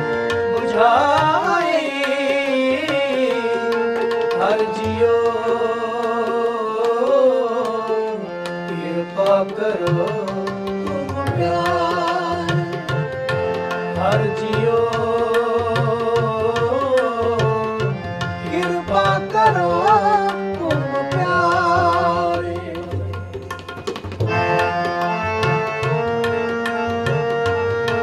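Shabad kirtan music: harmonium playing a melodic passage over a steady tabla rhythm.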